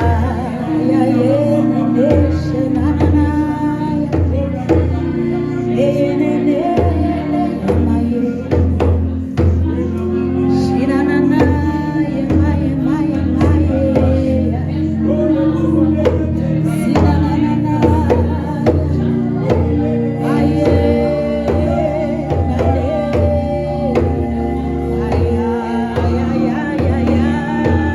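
Gospel worship music: a band with steady bass and drums, with men and women singing.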